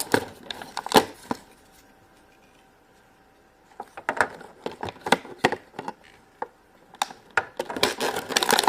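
Small plastic MagiClip doll and clip-on dress pieces clicking and tapping as they are handled, with some plastic packaging crinkling. The handling stops for about two seconds in the middle, then picks up again with a run of clicks.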